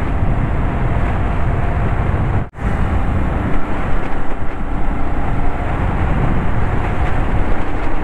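Steady wind rush and engine and road noise from a motorcycle riding at speed, with a sudden brief dropout about two and a half seconds in.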